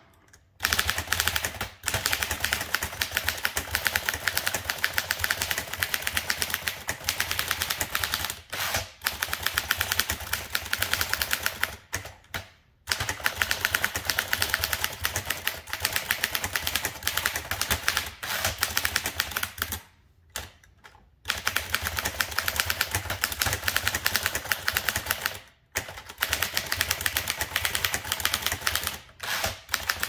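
1936 Dankers typewriter typed at full speed: a rapid, dense clatter of keystrokes and type bars striking the platen. The clatter breaks off in a few short pauses, the longest about a second each, near the middle and about two-thirds of the way through.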